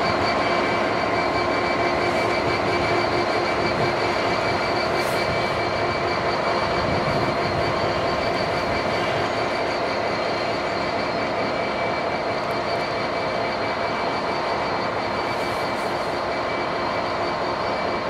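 Class 66 diesel locomotive's two-stroke V12 engine running steadily as it hauls a long freight train at very low speed. Its continuous rumble carries several steady held tones and eases off slightly near the end.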